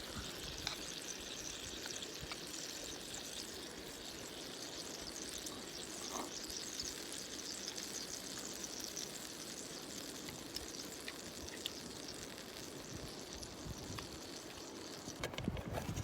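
Food sizzling in a skillet over a campfire: a steady hiss with faint scattered ticks. Near the end, a few knocks of a pan or utensil.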